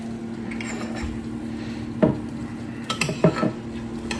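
A utensil clinking and scraping against a roasting pan a few times, basting a roast chicken with its pan drippings. A steady low hum runs underneath.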